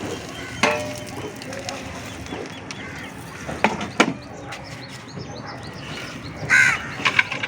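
A few sharp knocks and clatters over a low, steady background: one about half a second in, two close together around the middle, and a brighter cluster near the end.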